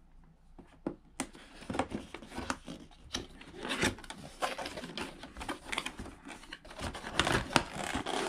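A cardboard product box being opened by hand: the tape is slit, then the flaps and the packaging inside rustle, scrape and click as the contents are pulled out, getting busier and louder toward the end.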